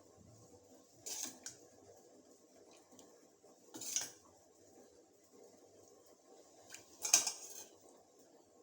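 Metal kitchen utensils clinking against pots and pans in three short bouts: about a second in, around four seconds, and loudest about seven seconds in.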